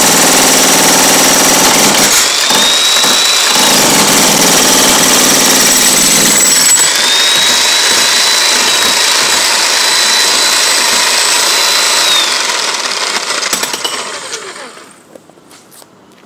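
Corded electric demolition hammer pounding into a concrete floor, a loud steady hammering with a thin high whine over it; it dies away and stops about three-quarters of the way through.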